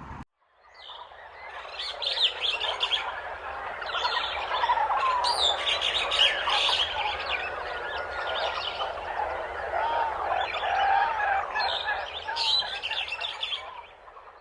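A dense chorus of many small birds chirping and calling at once, fading in after a short silent break and fading out near the end.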